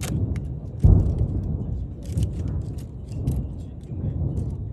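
Fireworks going off: continuous deep booming rumble with a heavy boom about a second in, and rapid crackling pops over it.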